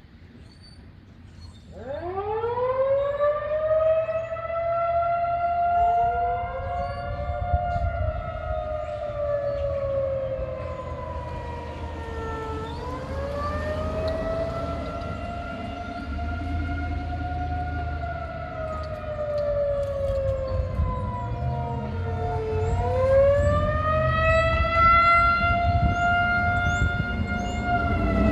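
Outdoor tornado warning sirens starting up about two seconds in, winding up in pitch and then wailing with slow falls and sharp rises roughly every ten seconds. A second siren joins a few seconds later, a little lower and out of step with the first.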